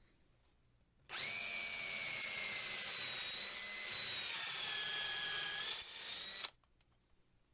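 Electric drill whining as it bores into a wooden handle blank. It starts about a second in, runs steadily for about five seconds with its pitch sagging slightly under load, then stops abruptly.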